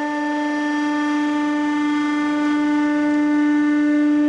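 Hydraulic press running: a steady, even hum from its pump as the ram comes down onto the workpiece, with no crunch yet.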